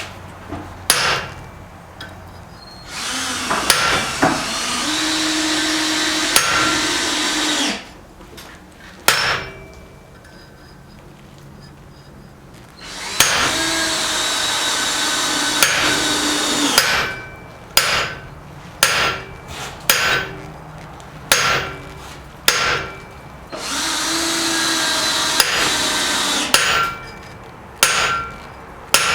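Hammer blows on metal, struck one at a time with short gaps, coming more often near the end. Three times a machine runs steadily for a few seconds and then stops.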